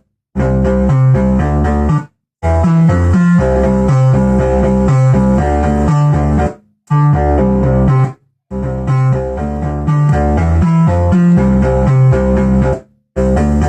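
Behringer analogue synthesizers playing fast, plucky sequenced note patterns over a heavy bass line, run through a Behringer Virtualizer Pro DSP2024P multi-effects unit. The sound stops dead for a fraction of a second several times, near the start, at about 2 s, 7 s, 8 s and 13 s in, then starts again.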